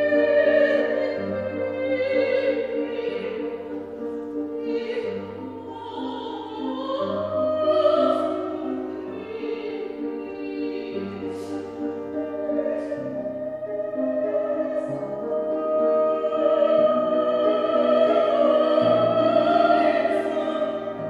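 Classical soprano voice singing a German lied with vibrato, accompanied by an upright piano playing repeated chords.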